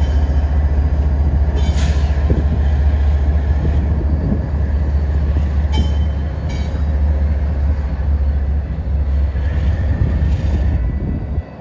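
Kansas City Southern diesel locomotives rolling slowly past with a steady low engine drone and rumble, with a few sharp clicks from the wheels on the rails.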